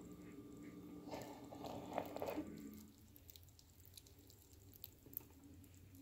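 A metal spoon stirring soft potato pasta clumps in a colander, faint and squishy for the first few seconds, then only scattered light clicks.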